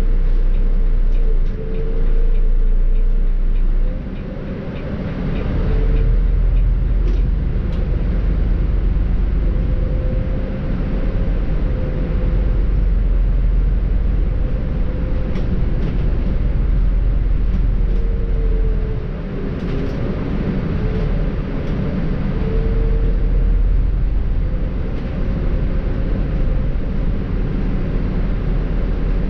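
Volvo B7R bus's diesel engine and ZF EcoLife automatic gearbox running on the move: a steady low rumble with a whine that rises and falls several times as the bus accelerates and shifts.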